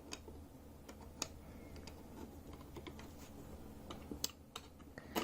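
Faint scattered clicks and light scraping of a cardboard keyboard box being cut open along its seal and handled, with a few sharper clicks a little over a second in and near the end.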